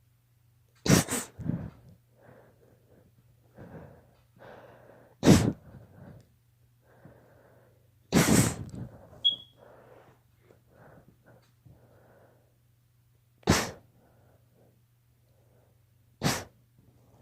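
A girl sneezing from allergies: about five sharp sneezes spaced several seconds apart, the first a quick double, with softer sniffs and breaths in between.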